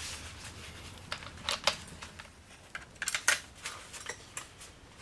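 Scattered light metallic clicks and clinks, a few at a time, of steel tools and parts being handled. No grinder is running.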